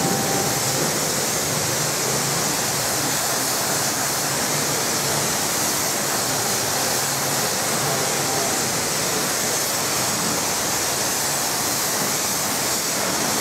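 High-pressure washer jet spraying water over a car body: a steady, even hiss.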